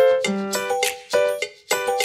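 Background music: a light tune of short, bright pitched notes struck on a steady beat, a few a second.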